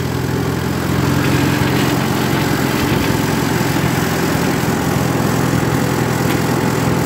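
1951 McCormick W4 tractor's four-cylinder engine running steadily as the tractor drives slowly, a little louder from about a second in.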